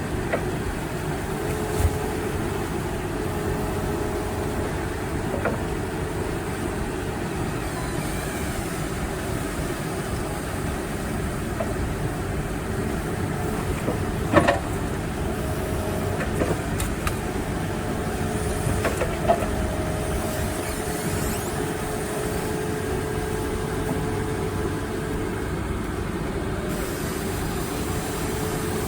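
Case 580 Super N backhoe's diesel engine running steadily, with a few sharp clanks from the machine; the loudest clank comes about halfway through.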